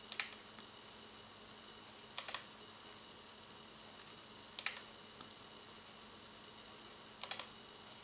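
Buttons on a plastic handheld remote control are pressed four times, about two to two and a half seconds apart. Each press is a short double click, over a faint steady hiss.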